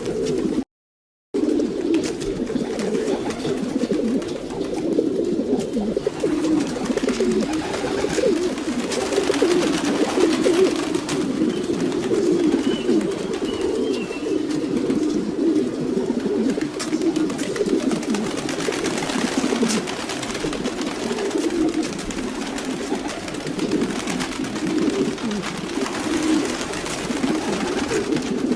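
Domestic pigeons cooing, many at once in a steady overlapping chorus. A brief cut to silence comes about a second in.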